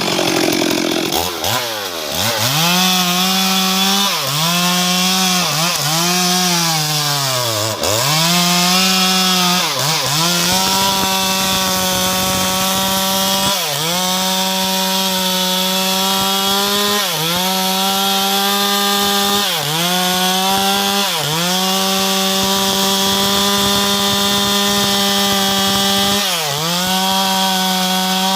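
Stihl MS 382 two-stroke chainsaw running at full throttle, cutting into a tree. Its engine pitch drops sharply and recovers again and again as the chain bites and the saw bogs under the load. The dips are deep and close together at first, then the saw holds a steady high whine with only brief drops.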